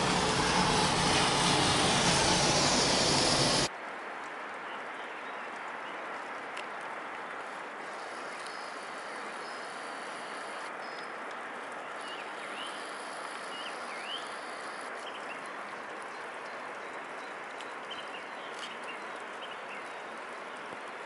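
Car driving, heard from inside the cabin as engine and tyre noise, cut off abruptly about four seconds in. After that there is a quieter, steady outdoor rush with a few faint high bird chirps.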